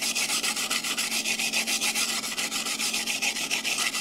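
Hand wire brush scrubbing a flux-core weld bead on thin steel sheet in quick back-and-forth strokes, about six a second, a harsh scratchy rasp. It is brushing the slag and spatter off the fresh weld.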